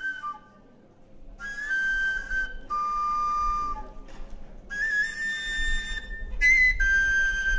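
Background music: a solo flute playing a slow melody of held notes, with a short pause about a second in.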